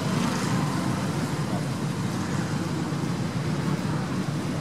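Steady low rumble of background noise, even throughout, with no distinct calls or knocks.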